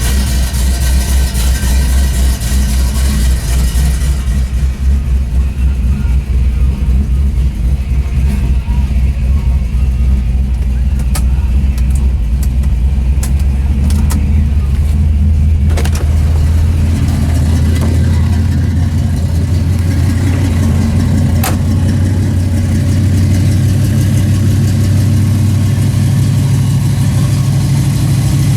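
Chevrolet Nova engine running at idle just after a start on a mild day, a steady deep rumble; about halfway through the engine note changes and carries on steadily. A few sharp clicks sound in the middle.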